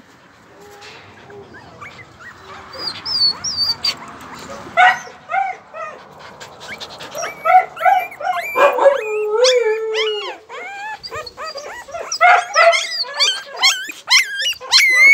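Very young husky puppy whimpering and squealing: short high cries that bend up and down in pitch. They start about five seconds in, one longer cry comes about nine seconds in, and the cries grow quicker and louder near the end.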